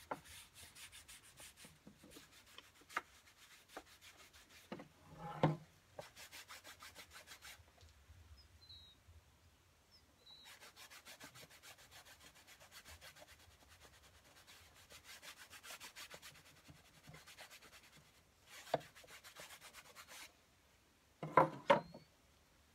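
Cloth rag scrubbing wood stain into a wooden produce box, quick back-and-forth strokes in runs with short pauses. A knock about five seconds in and a brief clatter of wooden knocks near the end, as the box is handled and set down on the wooden workbench.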